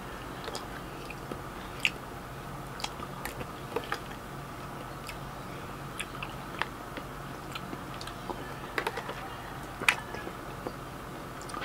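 A person chewing and biting food close to the microphone, with irregular small wet mouth clicks and smacks.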